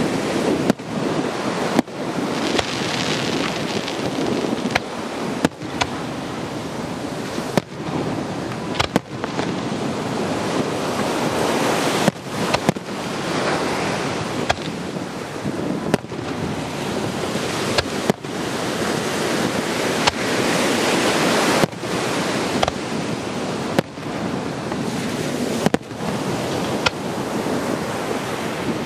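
Aerial fireworks shells bursting overhead: about a dozen sharp bangs at irregular intervals of one to three seconds. Beneath them runs a steady rush of ocean surf and wind on the microphone.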